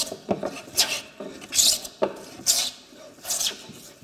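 Smoothing plane cutting shavings from a laminated wooden board in quick push strokes: a hissing swish on each stroke, four strokes, roughly one every second.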